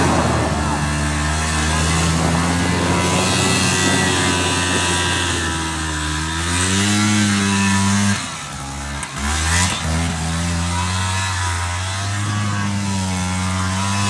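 ATV engine running and revving, its pitch rising and falling. About eight seconds in the engine sound drops away briefly, then picks up again.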